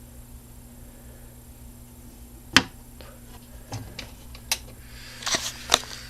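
A few sharp clicks and knocks over a faint steady hum: one loud click about two and a half seconds in, a couple of lighter ones after it, and a quick cluster of clicks near the end.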